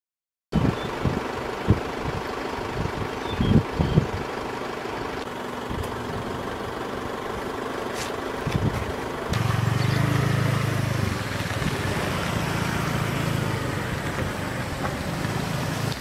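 Outdoor field sound: a low rumble with irregular low thumps in the first few seconds, then a steady low engine hum from about nine seconds in.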